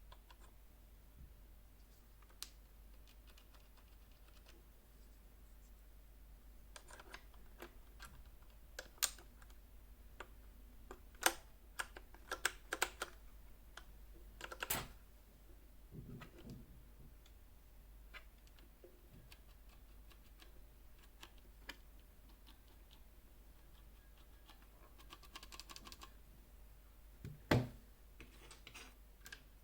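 Keystrokes on a Ducky One 2 SF mechanical keyboard with brown switches: irregular bunches of key clacks with quiet gaps between them, the busiest stretch about a third of the way in.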